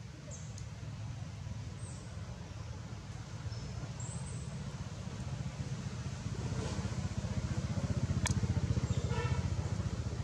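Low engine rumble of a vehicle, growing louder in the second half and easing off slightly near the end. There is one sharp click about eight seconds in.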